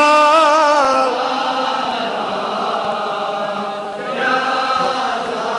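A male noha reciter's voice holds the last note of a line with a wavering vibrato for about a second. Then a group of men's voices carries on a slower chanted lament, with a new sung line rising about four seconds in.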